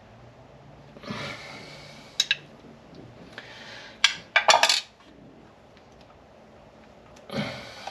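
Small metal tools and parts handled on a bench: a couple of sharp metallic clinks about two seconds in and a quick, louder cluster of clinks around four seconds, between stretches of rustling and scraping.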